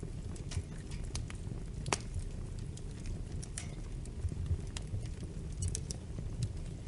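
Wood fire in a fireplace crackling: irregular sharp pops and snaps over a low steady rumble, with one louder pop about two seconds in.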